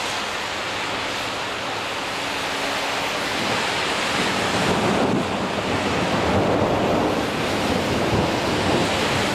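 Vehicles driving through deep standing water on a flooded street, their tyres pushing a wash of water and spray, over steady rain. The water noise swells louder from about halfway through as the vehicles plough through the deepest part.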